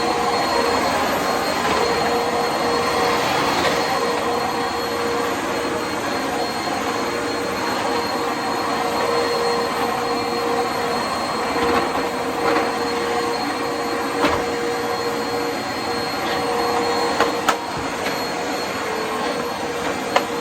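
Eureka Whirlwind Plus upright vacuum cleaner running at full speed, a steady motor hum with a high whine, with a few sharp clicks in the last few seconds.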